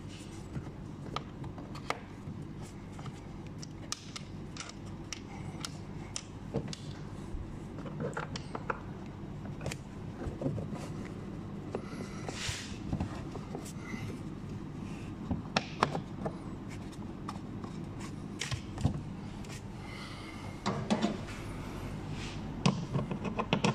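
Scattered light clicks and knocks of parts being handled, over a steady low hum.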